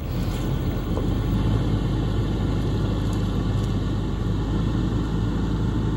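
A large motorhome's engine running with a steady low rumble as it drives slowly away along a gravel driveway.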